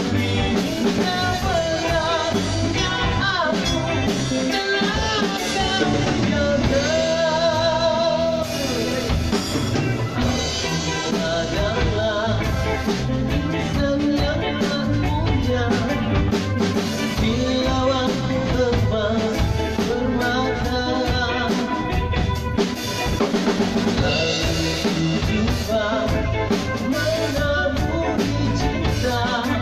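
A live band playing a reggae arrangement of a Malay pop ballad on drum kit, electric bass, electric guitar and keyboard, with a man singing over it.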